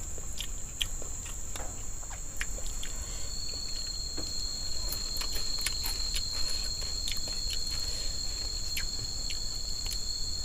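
Chorus of forest insects, a steady high buzzing throughout, with a second steady high-pitched tone joining about three seconds in. Scattered soft clicks and taps sound over it.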